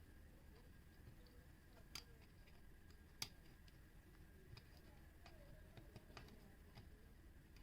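Near silence with a few light clicks and ticks, two sharper clicks about two and three seconds in, from small parts being handled during soldering work on a battery box.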